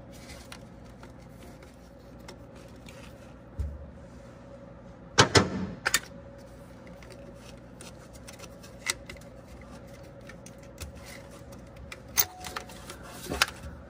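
Scattered clicks and knocks of hand work on a wiring connector and the belt drive of a diesel engine that is not running, with a cluster of louder knocks about five seconds in and more near the end.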